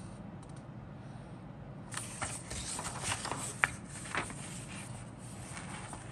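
Paper instruction booklet being handled and a page turned: a rustle and crinkle of paper starting about two seconds in, with a few sharp clicks and one sharper snap in the middle, then a softer rustle near the end.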